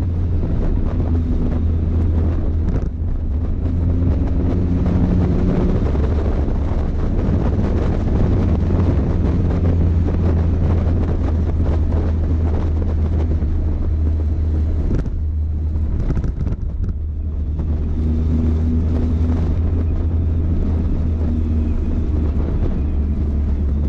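Motorcycle engine running at road speed under heavy wind noise on the microphone. The engine note shifts up and down a few times, eases off about fifteen seconds in and picks up again a couple of seconds later.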